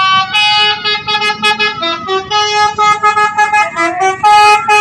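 Telolet bus horn, a multi-tone musical horn, playing a quick melody of short sustained notes that jump in pitch from one to the next, several notes a second.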